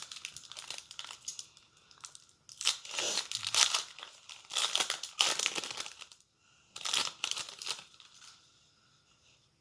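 Wrapper of a Triple Play baseball card pack being torn open and crinkled, in several bursts of rustling that die away in the last couple of seconds.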